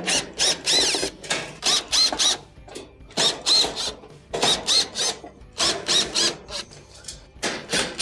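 Cordless drill/driver with a Phillips bit backing out sheet-metal screws from a range's steel back panel. It runs in many short trigger pulses, the motor whine rising and falling with each one, in clusters with brief pauses as it moves from screw to screw.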